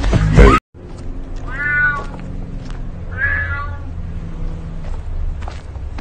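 Loud music cuts off abruptly under a second in. Then a black cat meows twice, about a second and a half apart, over a steady low rumble.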